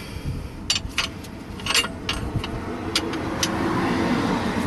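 About six sharp metallic clicks and clinks of a ring spanner working the gearbox mounting bolt tight, spread over the first three and a half seconds. Under them a vehicle's rushing noise swells and peaks about four seconds in, then eases off.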